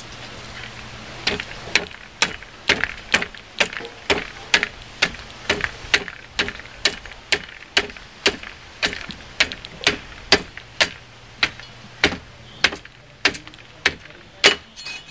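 Machete chopping thin kindling slivers off an upright wooden stick: sharp chops about twice a second, starting a little over a second in.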